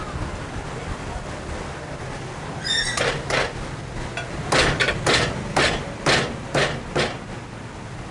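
Large Chinese cleaver chopping a whole cooked chicken through the bone on a wooden chopping block. About nine sharp chops come in a run from about three seconds in, roughly two a second.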